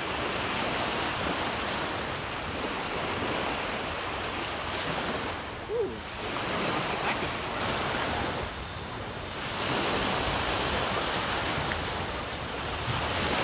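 Lake Michigan waves breaking and washing up on a sandy shore, a steady rush that swells and eases with the waves.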